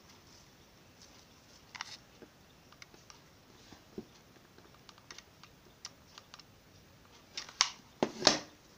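Light scattered clicks and rustles of hands handling satin ribbon petals and a hot glue gun while gluing a ribbon flower, with two louder knocks near the end.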